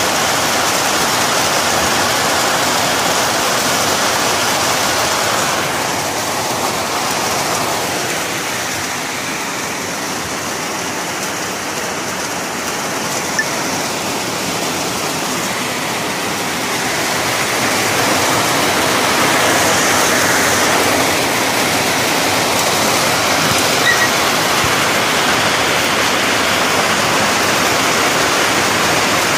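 Heavy rain falling steadily, with rainwater pouring off the edge of a corrugated roof. It eases a little in the middle and builds back up.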